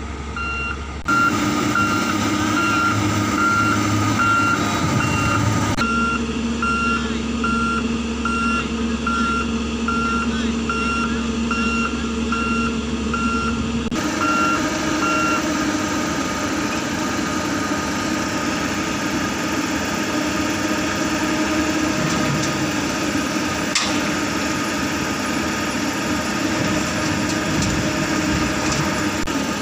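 Reversing alarm beeping in a steady repeating pattern over a running diesel engine; the beeping stops about 15 seconds in. After that only the Komatsu PC200 hydraulic excavator's diesel engine is heard, running under load as it digs and loads.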